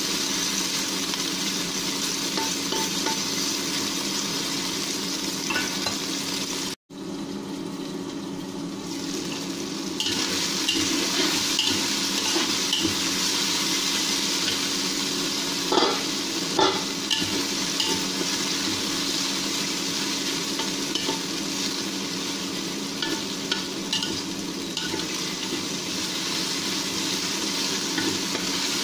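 Pieces of meat sizzling in hot oil in a wok while being stirred with a metal spatula, with the spatula scraping and tapping against the pan now and then. The sizzle is steady, drops out for an instant about a quarter of the way in, and a couple of sharper taps come about halfway.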